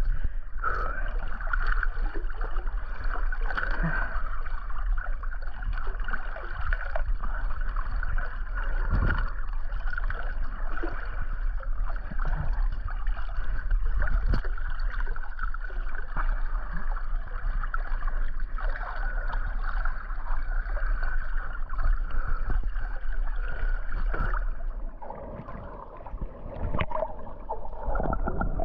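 Swimming-pool water sloshing and gurgling against a camera held at the water's surface. Near the end the level drops and the sound changes as the camera goes under the water.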